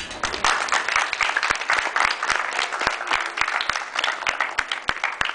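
A room full of students applauding, many hands clapping at once; the applause stops at the end.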